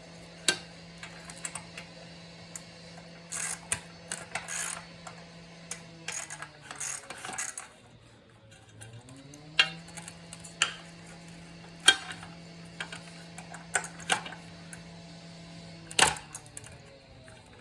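Scattered metallic clinks and clanks of hand tools and metal parts being handled on a circular saw, over a steady low hum that sinks away about seven seconds in and comes back a couple of seconds later.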